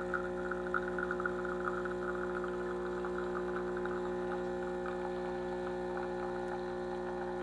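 De'Longhi ECP3630 espresso machine's vibratory pump humming steadily while brewing a double shot, with light crackling over the hum in the first few seconds. The pump is a new replacement for one that had lost its pressure, and here it runs steadily under load.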